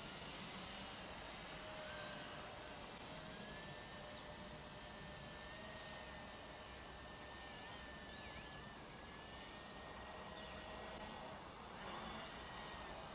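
Small drone's propellers giving a faint, steady whine of several held tones that waver slightly in pitch as it flies overhead.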